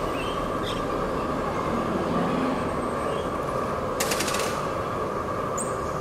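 Steady low outdoor background rumble with a faint steady hum, and a brief crackling rattle about four seconds in; the siren is not sounding.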